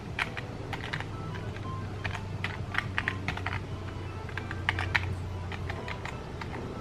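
Typing on the Asus FX550I laptop's keyboard: a run of irregular key clicks as a password is entered, with soft background music underneath.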